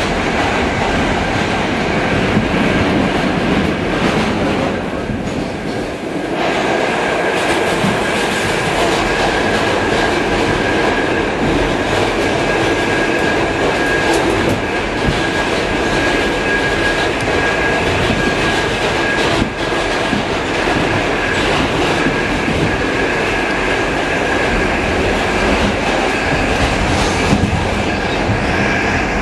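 R68 subway car running between stations, the steady rumble and clatter of wheels on rail under a steady high whine from its traction motors, which are severely whining. The noise dips briefly about five seconds in.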